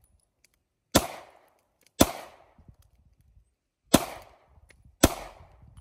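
Four pistol shots, the first two and the last two about a second apart with a two-second pause between the pairs, each trailing off in a short echo.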